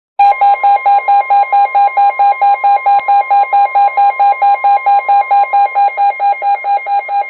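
Weather alert radio's alarm beeping rapidly, about five beeps a second, over the steady 1050 Hz warning alarm tone of a NOAA Weather Radio broadcast, signalling an incoming severe thunderstorm warning.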